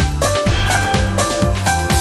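Upbeat electronic background music with a steady, fast beat and a bass line.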